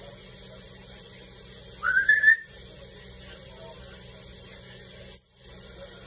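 African grey parrot whistling one short note that rises and then holds, about two seconds in. A brief click comes near the end.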